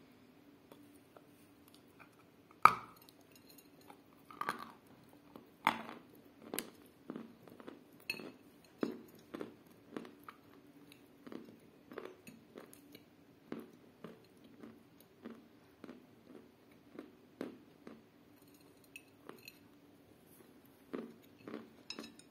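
A bite into a block of sawn 'Devitsa' chalk coated in clay paste snaps loudly about three seconds in. Steady chewing follows, a short crunch about twice a second; the chalk-and-clay mix grinds and squeaks between the teeth, as if it held grit or stones.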